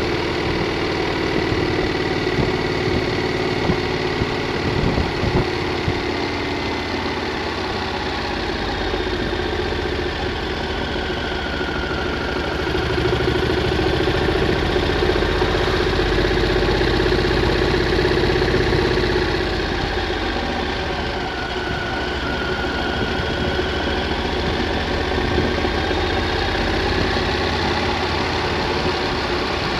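Triumph Thunderbird motorcycle engine running steadily at a relaxed cruise under wind rush, its pitch drifting gently up and down with the throttle.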